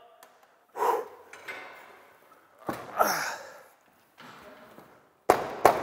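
Knocks, scrapes and rattles of a 26-gauge galvanized steel ceiling sheet being pushed up into its J-channel overhead. Two sharp bangs near the end are the loudest.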